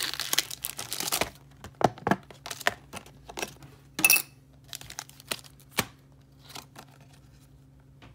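Plastic blister packaging and foil booster packs crinkling and rustling as they are handled and pulled out of a torn-open blister, then a series of separate crackles and clicks that thin out and stop about two-thirds of the way through.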